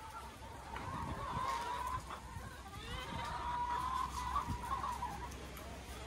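A flock of hens clucking, with two drawn-out, wavering calls a second or two long each.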